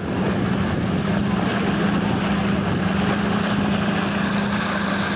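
Speedboat engine running steadily at speed, a constant low drone, with water rushing and churning past the hull.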